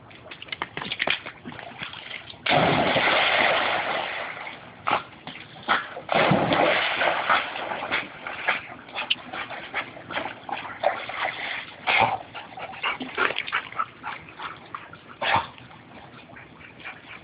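Dogs splashing in a swimming pool: two big splashes of rushing water about 2.5 and 6 seconds in, and many short slaps and splashes of water in between and after.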